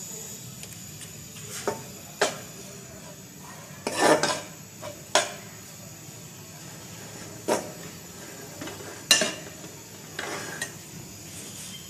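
Steel spoon scraping and clinking against a steel pan while stirring shredded chicken as it reheats: about eight sharp knocks at irregular intervals, with a tight cluster about four seconds in and the loudest knock near the end.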